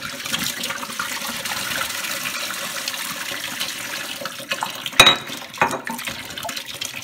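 Water pouring out of two upturned glass beer bottles, one emptied normally with a glugging flow and one swirled into a whirlpool so it drains as a vortex. A sharp knock about five seconds in.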